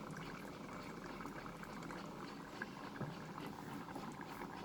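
Thick chicken gravy simmering in a pan on the stove: a faint, steady bubbling with many small pops.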